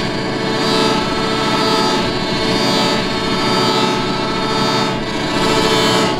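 Chromatic button accordion holding a dense, droning chord of many notes at once, swelling and easing roughly once a second.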